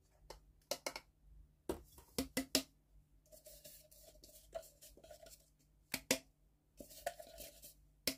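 Light taps and clicks of a plastic food-chopper bowl being knocked and shaken over a glass mixing bowl, with two stretches of soft scraping as dry ground Oreo biscuit crumbs slide out.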